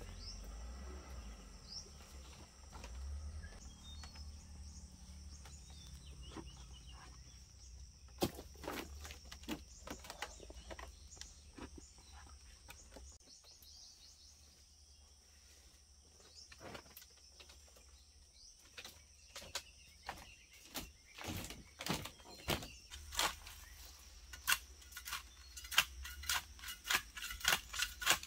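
Footsteps knocking on a split-bamboo slat floor, then a hoe striking into soil about once a second, each blow louder toward the end, over a steady high-pitched background hum.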